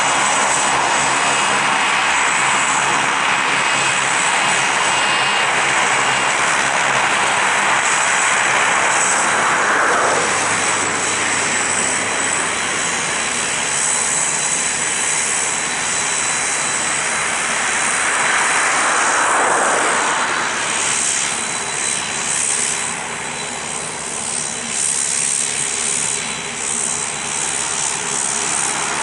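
Saab 340A's twin turboprop engines running at taxi power: a steady propeller drone under a high turbine whine. The sound swells twice, about a third of the way in and again around two-thirds, then becomes a little weaker and more uneven near the end.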